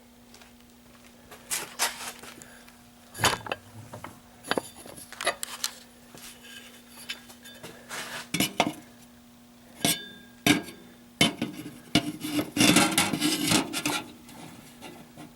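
Small metal parts and tools clinking and knocking as they are handled and set down, in irregular strikes with a denser clattering rattle about twelve seconds in. A steady faint hum runs underneath.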